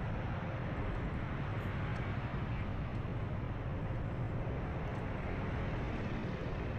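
Steady road and traffic noise from travelling along a city street: a constant low rumble with no distinct events.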